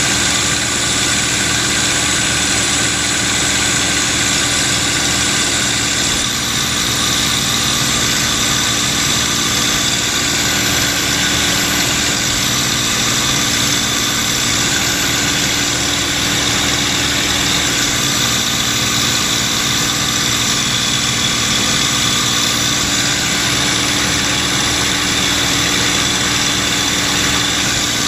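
Steady drone of a P-51D Mustang's Packard Merlin V-12 engine and propeller in cruising flight, heard from inside the cockpit with the rush of the slipstream.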